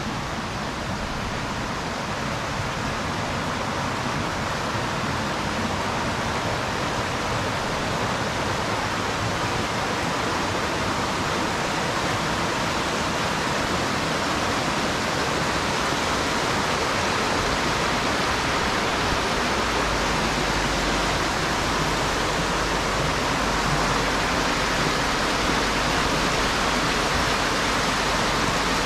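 Steady rushing of a rocky creek, its water running over stones, mixed with rain, growing a little louder toward the end.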